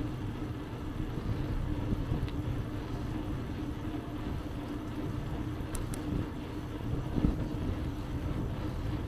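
Riding noise from a bicycle heard at a handlebar-mounted camera: a steady low rumble of wind and rolling tyres with a steady hum through it.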